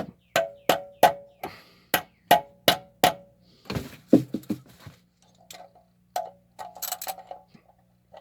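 Sharp metallic clicks with a short ring, about three a second for three seconds, then a brief rattle and a few scattered clicks: hand tools working a seized oil-pan bolt on an EJ25 engine.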